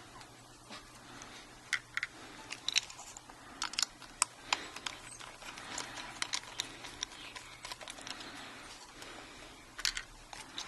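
Irregular small clicks and taps of a hard drive's metal bracket and holding pins being handled and fitted onto a solid state drive.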